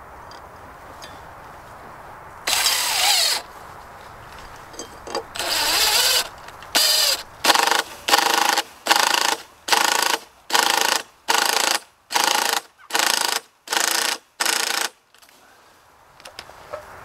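Cordless drill driving a screw into a wooden post: two longer runs of the motor, then about a dozen short trigger bursts roughly every half second as the screw is driven home.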